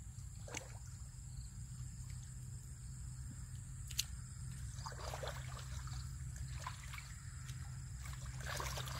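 Shallow muddy water splashing and sloshing in irregular bursts as hands grope through the mud, picking up about halfway through, over a steady low rumble. One sharp click about four seconds in.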